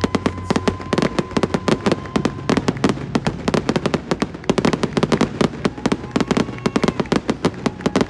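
Aerial fireworks going off in a dense, rapid barrage, many sharp cracking bangs a second without a break, with a faint steady whistle through the first couple of seconds.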